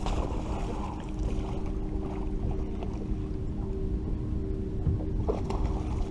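A boat's motor humming steadily, with a rough low rumble of wind and water underneath and two brief rustling sounds, one at the start and one about five seconds in.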